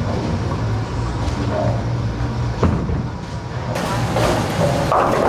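Bowling ball rolling down the lane with a low, steady rumble, then striking the three remaining pins with a clatter about four to five seconds in.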